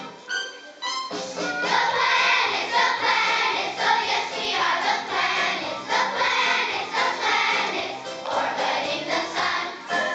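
A children's choir singing a song with instrumental accompaniment, the voices coming in about a second in after a few instrumental notes.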